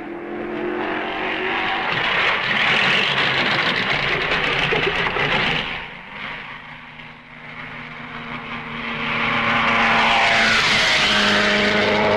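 1950s Grand Prix racing car engines running hard with a strong hiss: the sound swells and holds, dips about halfway through, then a car comes up loud again and passes with a falling pitch near the end.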